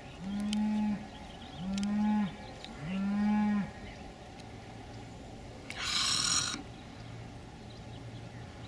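Three low animal calls, each under a second long and about a second apart, in the first four seconds, with a faint steady low hum later. About six seconds in comes a brief hiss-like burst.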